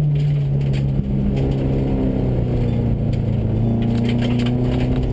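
Subaru rally car's engine heard from inside the cabin on a gravel stage: the engine note sinks steadily as the car slows for a bend, then climbs again from about three and a half seconds in as it accelerates out.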